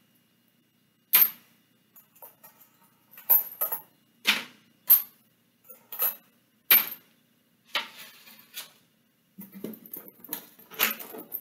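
Pennies set down one at a time onto a folded paper bridge and onto each other, each landing as a sharp metallic clink, roughly one a second. Near the end, a cluster of softer rustles and clicks as the paper bridge and coins are handled.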